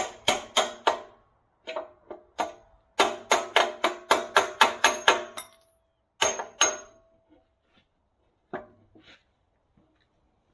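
Hammer blows driving a steel pivot pin out of a backhoe bucket, each with a ringing metallic clang. A few spaced blows, then a quick run of about four a second, then a few more that thin out toward the end.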